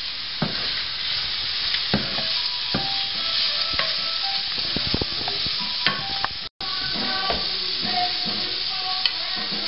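Diced sweet potatoes and minced garlic sizzling in oil in a nonstick frying pan, with scattered scrapes and taps of a spatula stirring them. The sound drops out for an instant about two-thirds through.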